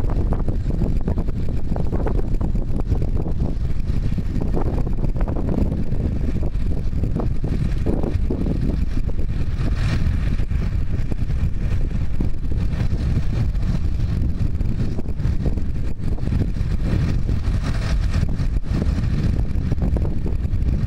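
John Deere 7830 tractor's six-cylinder diesel engine running steadily under load as its front loader pushes into a manure heap.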